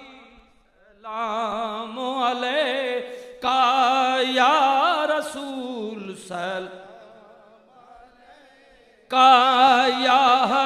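A man chanting a long, melismatic devotional line with a strongly wavering voice, in drawn-out phrases. It is quiet for the first second, fades in the middle, and a loud new phrase starts near the end.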